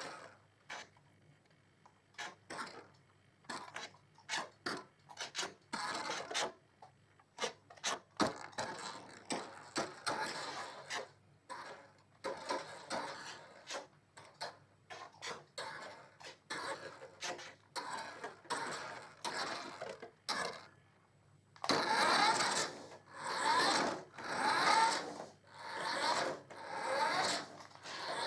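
Small electric drive motor and gears of a 1:12-scale RC car whirring in repeated short bursts as it is driven in spurts, the bursts growing longer and louder near the end.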